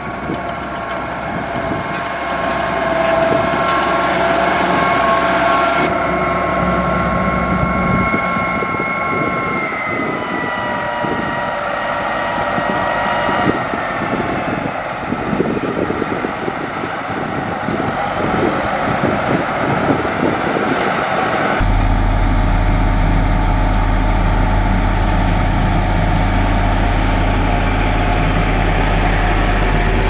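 Motor grader's diesel engine running under load while spreading gravel, a steady engine drone with tones that dip slightly in pitch partway through. About two-thirds of the way in the sound switches abruptly to a heavier, deeper engine drone.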